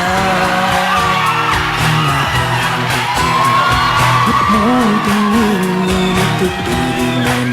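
Pop music with a singing voice over a steady accompaniment, at a loud, even level.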